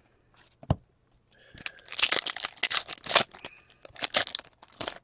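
A hockey card pack's wrapper being torn open and crinkled by hand: a single click, then a run of loud, crackling tearing and rustling from about a second and a half in.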